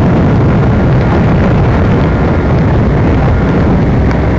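Loud, steady low rumbling noise with no clear pitch, unchanged throughout.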